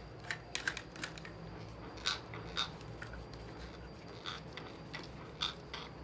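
Irregular light clicks and taps, about two a second, from a PVC-pipe parrot perch stand being handled and wiped.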